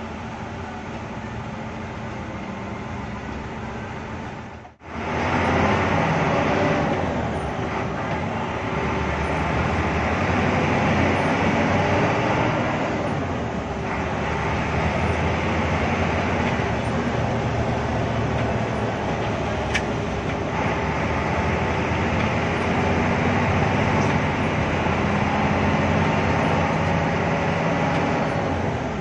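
Hino AK8 bus's turbo-diesel engine heard from inside the cabin: a steady, quieter idle for the first few seconds, then, after a brief break, the engine running louder with the bus under way.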